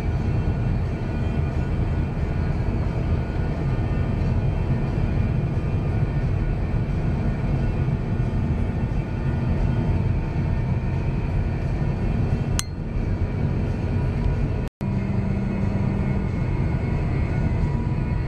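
Steady road and engine noise of a car driving, heard from inside the cabin. A single faint click comes about two-thirds of the way in, and the sound cuts out for an instant a little later.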